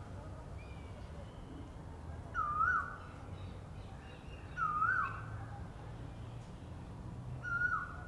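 Asian koel calling: a short, clear note that swoops down and back up in pitch, given three times about two seconds apart.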